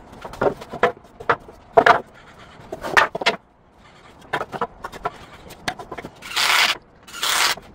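2x4 lumber boards being handled on a concrete floor: a run of sharp wooden knocks and clacks, then two short scrapes of about half a second each near the end.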